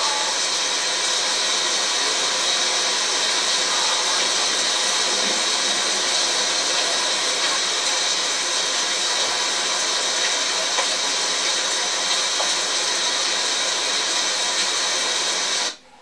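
Heavy rain pouring down, a steady, dense hiss that cuts off abruptly near the end.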